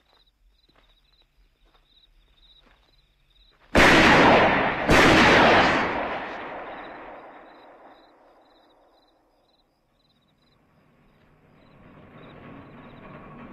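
Two gunshots about a second apart, each echoing away over several seconds, over crickets chirping. Near the end a rushing of water builds up and grows louder.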